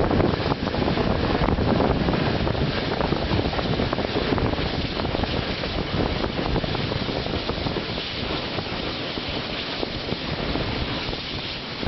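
Wind buffeting the microphone held out of a moving train's carriage window, over the train's running noise. It eases slightly towards the end.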